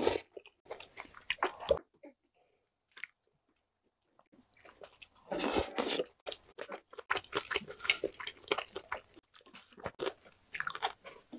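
Close-miked wet chewing and mouth sounds from eating spicy soft-tofu noodle soup, in spells of quick smacking clicks. A mouthful is taken in from chopsticks at the start, then a pause of a couple of seconds, then more chewing.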